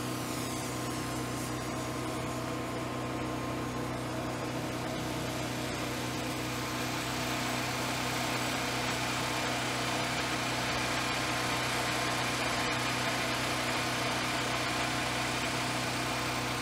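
Steady low hum of a motor running at constant speed, unchanging throughout, with a faint rising whine a few seconds in.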